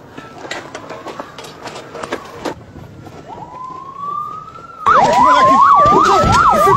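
Police siren: a rising wail begins about three seconds in, then about five seconds in a loud, fast yelp sweeps rapidly up and down, giving way near the end to a long falling wail.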